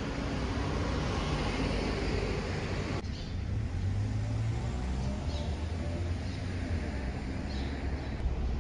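Urban street ambience: a steady wash of passing road traffic. About three seconds in it cuts to a quieter low rumble of distant traffic, with a few short bird chirps.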